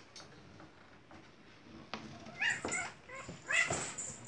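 Cat meowing twice, each call about half a second long and about a second apart.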